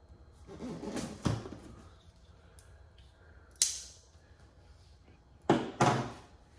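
A box cutter slitting packing tape on a cardboard box: a short scratchy cut about half a second in, then sharp clicks and knocks as the knife and box are handled, two of them close together near the end.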